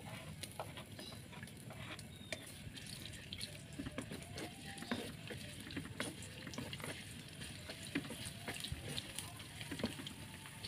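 Sliced garlic frying in a little oil in a wok: a soft sizzle with scattered clicks and scrapes from a wooden spatula stirring it.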